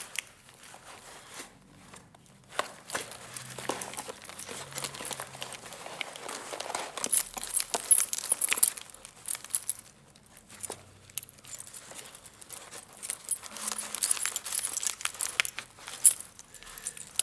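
Irregular rustling and crackling with scattered sharp clicks, quieter about two seconds in and again around the middle, with one sharp click near the end.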